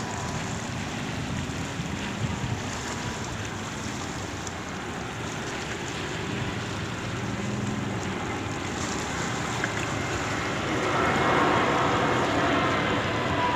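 Wind on the microphone and small waves, with the jet engines of an airliner on landing approach coming in and growing louder over the last few seconds.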